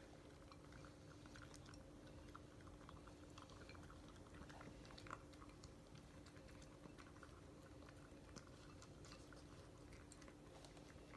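Cardigan Welsh Corgi puppy eating from a bowl: faint, irregular chewing and crunching with many small clicks.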